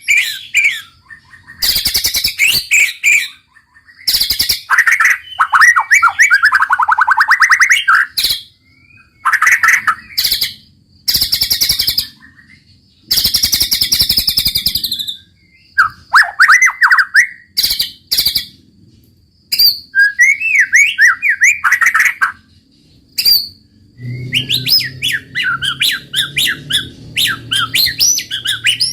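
White-rumped shama singing a loud, varied song in separate bursts of fast rattling trills, harsh scratchy notes and sweeping whistles, with short pauses between phrases.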